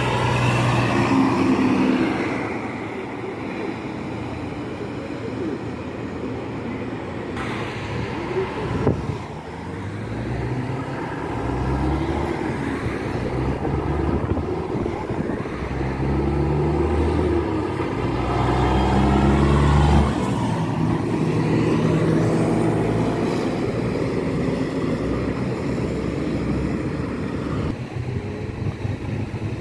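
Highway traffic with heavy diesel dump trucks and cars passing close by. A loud vehicle pass comes right at the start. Later a truck engine climbs in pitch in several steps as it pulls up through its gears, loudest about twenty seconds in.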